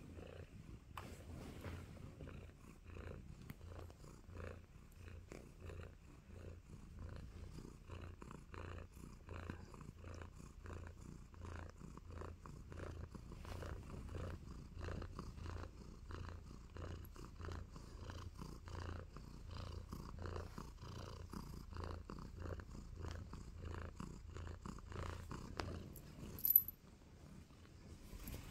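Orange tabby kitten purring contentedly while being petted: a steady, rhythmic, pulsing purr. A single brief sharp sound stands out near the end.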